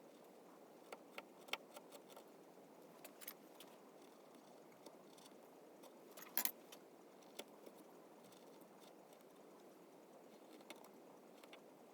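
Sparse small clicks and taps of hand carving tools working cherry wood, over faint room hiss; the loudest tap comes about six and a half seconds in.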